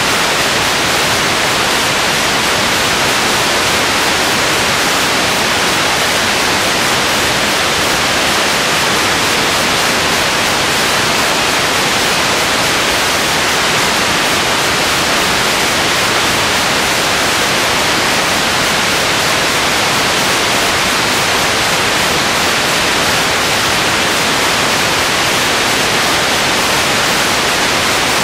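Loud, steady hiss of static with no other sound standing out.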